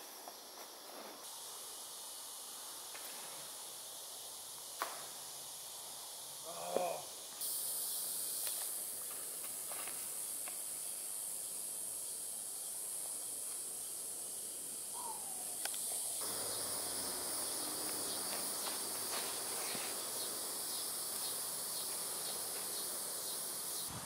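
Steady high-pitched drone of an insect chorus, which grows louder about seven seconds in, with a brief call near the middle and a short falling chirp later.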